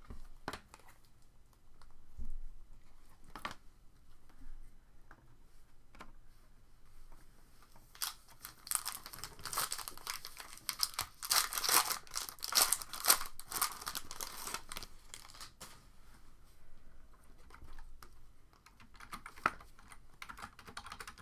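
A trading card pack wrapper being torn open and crinkled, with a dense stretch of crackling from about eight seconds in that lasts roughly eight seconds. Scattered light clicks and card handling come before and after it.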